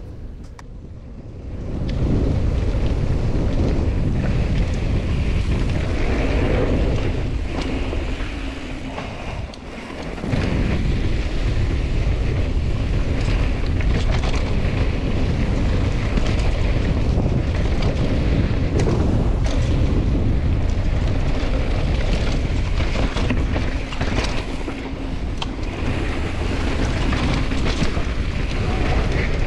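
Wind rumbling on the microphone of a camera carried on a mountain bike riding downhill, with scattered clicks and rattles from the trail. It eases briefly around eight to ten seconds in, then picks up again.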